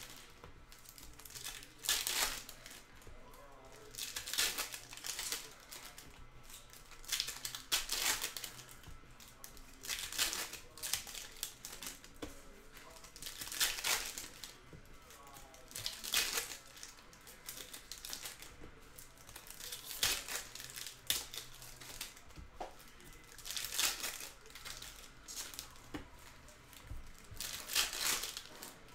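Wrappers of Panini Donruss Optic retail basketball card packs crinkling and tearing as the packs are ripped open, in sharp bursts every two to four seconds.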